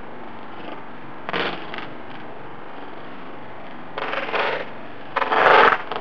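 BMX bike ridden on asphalt close by: a few short scraping, rattling bursts from the tyres and bike, the loudest about five seconds in, over a steady hiss.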